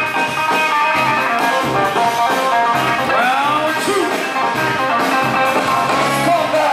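Loud music led by guitar, with a steady beat.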